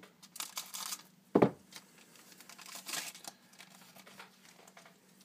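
Foil trading-card pack wrapper crinkling as it is cut open with scissors and handled, in two spells of rustling. A single short thump about one and a half seconds in is the loudest sound, with a faint steady hum underneath.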